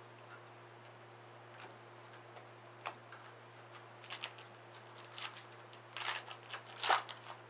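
Hockey trading cards being handled and flicked through by hand: soft scattered clicks and rustles, growing into louder clusters in the second half.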